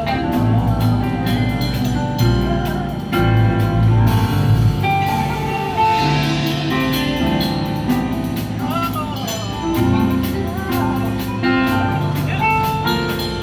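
Music: a song with bass, guitar, drums and a singing voice, playing steadily.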